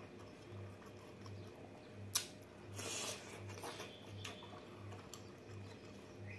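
Faint eating sounds of a person eating rice and prawns by hand from a wooden bowl: soft squishes and quiet chewing, with a sharp click about two seconds in and a short rustle around three seconds.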